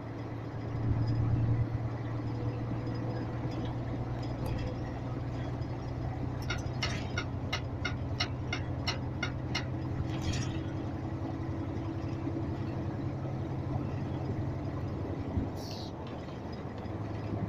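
Steady engine hum inside a moving vehicle's cab on the road. About six seconds in comes a quick run of around ten sharp, evenly spaced clicks, a little under three a second.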